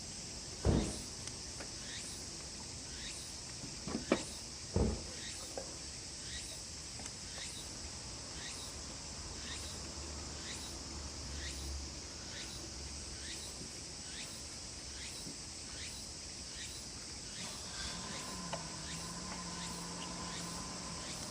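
Insects droning steadily, with a short chirp repeating a little faster than once a second. Three sharp knocks come in the first five seconds, and a low hum joins near the end.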